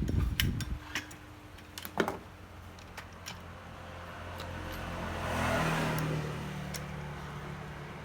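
A few sharp clicks, then a passing motor vehicle whose noise swells and fades away.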